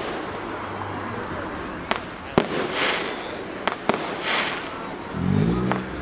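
Fireworks display: about five sharp bangs of bursting shells, with two short spells of crackling hiss between them. A person's voice comes in briefly near the end.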